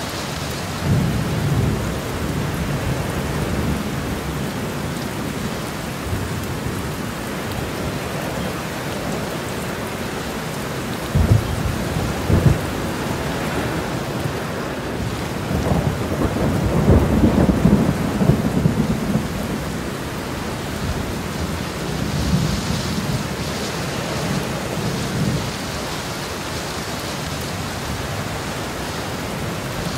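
Steady heavy rain with thunder: faint rumbles near the start, two sharp claps a little over a third of the way in, then a longer, louder rolling rumble just after the middle and another fainter rumble later on.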